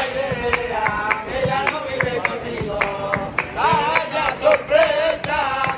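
A man's voice singing a wavering, ornamented melody to a strummed acoustic guitar, with sharp hand claps marking the rhythm.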